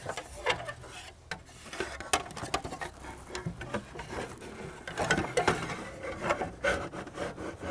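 Plastic fan shroud and fan clutch fan scraping and knocking against the radiator and engine-bay parts as they are worked down into place: irregular rubbing scrapes and light clicks.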